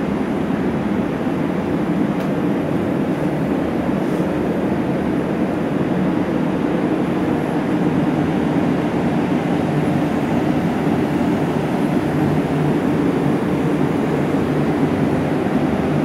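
Steady, even whir of a walk-in cold room's refrigeration unit and its fans, running without a break.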